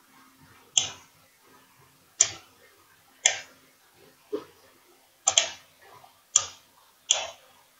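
Computer mouse clicking: about seven sharp single clicks roughly a second apart, one of them a quick double click.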